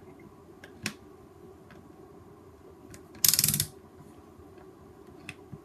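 Handling of a handheld digital multimeter: a sharp click about a second in, a few light ticks, and a loud, short rattling clatter of rapid clicks a little past three seconds in as its rotary selector switch is turned to measure current.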